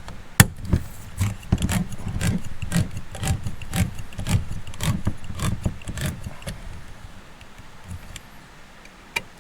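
Metal camp cookware and utensils clinking and scraping, sharp clicks about twice a second for some six seconds, then fewer and fainter.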